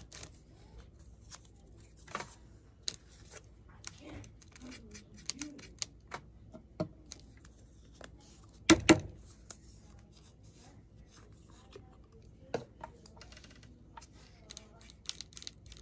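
Crafting handling sounds on a wooden work table: torn paper pieces and small bottles being picked up and set down, giving scattered light taps and paper rustles. Two sharp knocks close together about nine seconds in are the loudest sounds.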